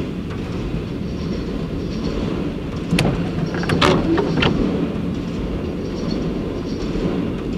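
Freight train cars rolling past with a steady low rumble, and a quick run of sharp clanks about three to four and a half seconds in.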